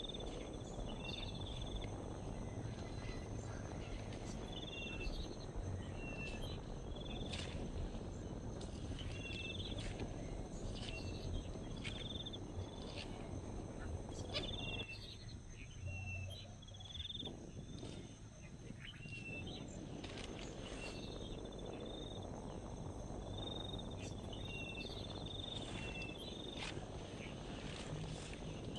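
Outdoor ambience: a short, high chirping call repeats every second or two, each one followed by a brief lower falling note, over a steady low rumble. The rumble drops away for a few seconds around the middle.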